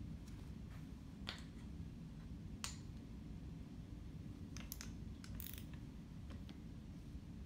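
Light metallic clicks and taps from a ratcheting combination wrench and small carburetor parts being handled, with a quick run of clicks about two-thirds of the way through, over a steady low hum.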